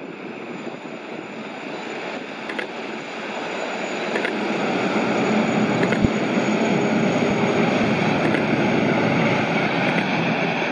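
Kawasaki Jetfoil high-speed ferry's gas turbines and water jets running, a faint high whine over rushing water. It grows louder over the first few seconds, then holds steady as the craft comes down off its foils onto its hull.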